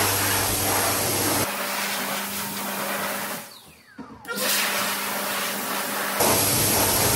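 Dyson Airblade V hand dryer blowing air hard. About three and a half seconds in it cuts out, its motor whine falling away, and it starts blowing again about a second later as hands go back under it.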